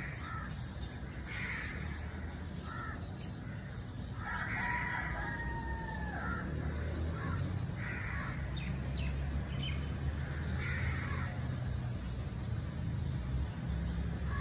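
Outdoor birds calling: short calls every second or two, and one longer call about four seconds in that lasts about a second and a half and drops in pitch at its end. A steady low rumble runs underneath and grows louder about four seconds in.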